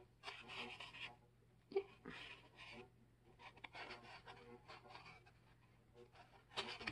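Paper pages of a large paperback journal being turned and handled: soft rustling and swishing that comes and goes, with a sharper page flick about two seconds in and a louder rustle near the end.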